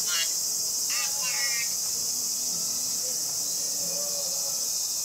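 Steady, high-pitched insect buzzing, with brief snatches of television speech near the start.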